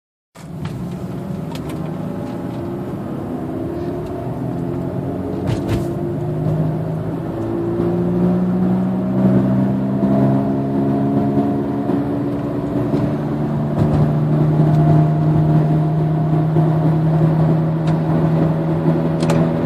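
2007 Nissan Altima running loud while driving, a deep steady drone that sounds like a motorcycle alongside, its pitch rising slowly over the first half and then holding. The noise is loud enough to rattle the cup holder and mirror, and its cause is unknown.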